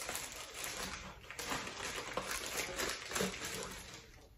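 Clear plastic bag crinkling and rustling as it is opened by hand and the item inside is pulled out, dying away near the end.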